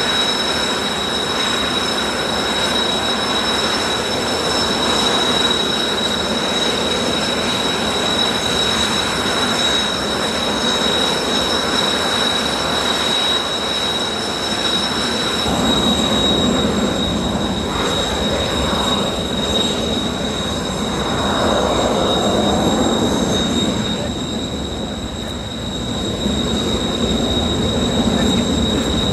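Blue Impulse Kawasaki T-4 jets' twin turbofan engines running: a steady rush with a high, even whine over it. A deeper rumble swells in about halfway through and rises and falls.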